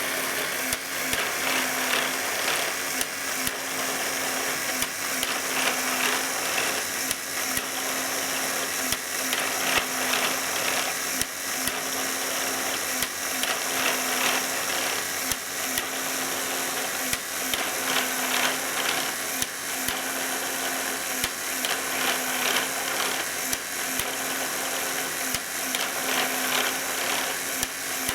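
Lego Technic gear transmission driven by a small electric motor: a steady whir of plastic gears over a constant motor hum, with irregular sharp clicks from the gearing.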